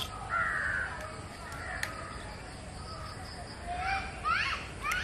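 A crow caws once just after the start over a steady background chirr of crickets. A sharp tap of a metal spoon cracking an egg shell comes at the very start, with a lighter click nearly two seconds in, and other birds chirp near the end.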